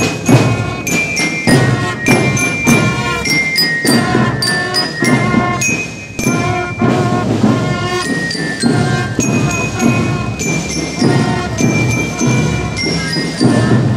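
Marching drum band playing a tune: brass horns sounding held notes over a steady beat of marching drums.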